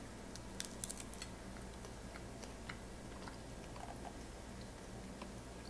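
Faint chewing of white-chocolate-coated bacon: small mouth clicks, bunched in the first second or so and sparser after, over a low steady hum.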